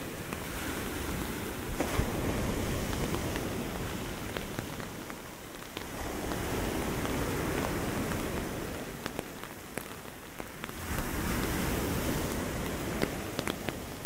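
Ocean surf in a storm, breaking and washing in three slow swells roughly four to five seconds apart, with rain falling and raindrops ticking sharply close by.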